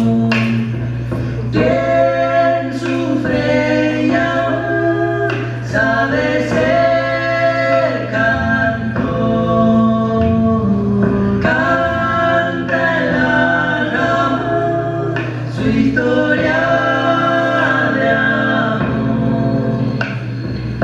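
Music for the act: several voices singing slow, long-held notes in harmony over a steady low drone.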